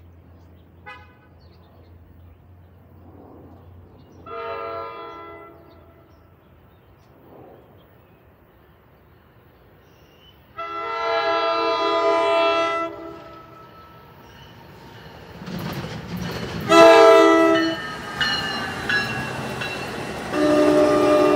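NJ Transit ALP-46 electric locomotive's multi-tone air horn sounding long, long, short, long, the standard grade-crossing signal, louder with each blast as the train approaches. The rumble of the train's wheels on the rails swells under the last two blasts.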